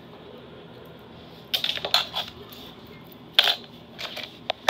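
Small plastic keychain figures with clip rings clicking and clattering as they are set down on a wooden tabletop: a cluster of clicks about a second and a half in, a sharper knock a little after three seconds, and a couple of light taps near the end.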